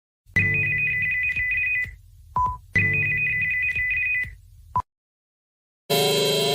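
Electronic alert tones of a mock emergency alarm: two ringing bursts of a high trilling tone pair, each about a second and a half long over a low rumble and each followed by a short lower beep. Near the end a different alarm starts, with repeating rising sweeps.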